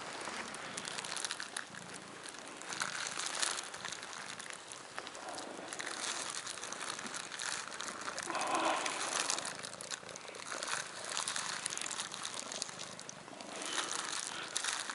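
Crinkling and rustling of a plastic obstetric sleeve, with straw bedding, as a gloved hand works at a calf's front hoof during an assisted calving. The crackling is irregular throughout, with a short lower-pitched sound about eight and a half seconds in.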